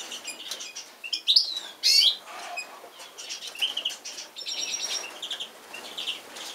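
Magpies calling: a run of short chirps with a few louder sweeping call notes about one to two seconds in.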